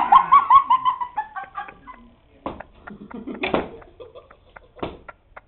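A person's high-pitched laughter: a quick run of 'ha' notes falling in pitch for about a second and a half, followed by a few scattered clicks and knocks.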